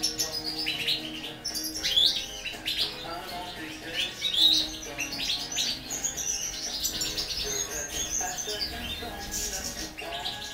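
Young European goldfinches twittering: a busy, unbroken run of quick high chirps and trills.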